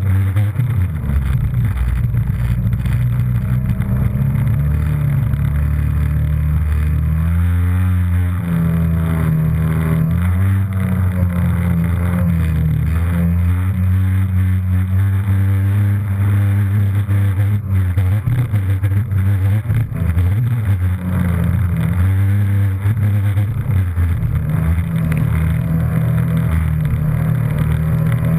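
Jet ski engine running at speed, its pitch rising and falling several times as the throttle is worked, with water rushing and spraying alongside.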